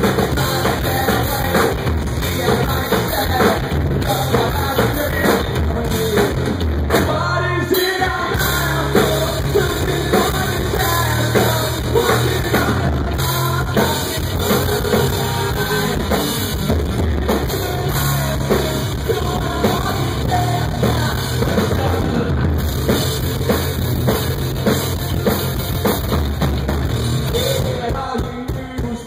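Live rock band playing loudly: drum kit, electric guitar and bass guitar, heard from the crowd. The bass and drums drop out briefly about a quarter of the way in, then come back in.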